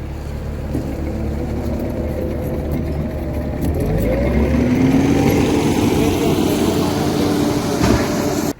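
A motor vehicle's engine running, rising in pitch and getting louder from about four seconds in as it speeds up. It cuts off abruptly near the end.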